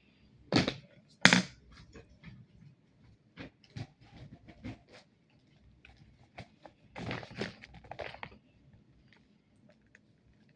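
Gift bags and packaging being handled: irregular rustling and small clicks, with two sharp knocks within the first second and a longer stretch of rustling a little past the middle.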